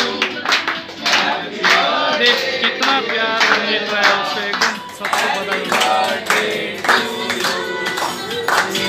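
Hands clapping in a steady rhythm over singing and music.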